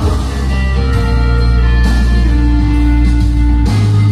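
Music from an FM radio station received on a Yamaha T-2 tuner and played through loudspeakers, with sustained notes over a strong, steady bass; the bass note shifts near the end.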